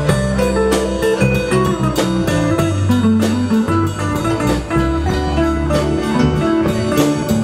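Live blues band playing an instrumental passage without vocals: electric guitar and bass over a drum kit keeping a steady beat, with drum and cymbal hits about twice a second.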